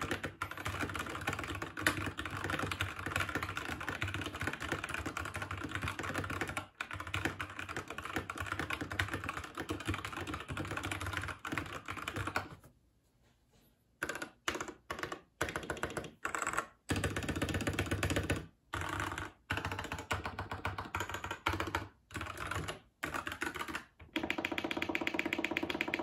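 TM680 65% mechanical keyboard with stock ART Box Red linear switches and PBT keycaps, typed on directly on a bare wooden desk with no desk mat. Fast continuous keystroke clacking runs for about twelve seconds and stops briefly. Then come short separate bursts of keystrokes with small pauses between them.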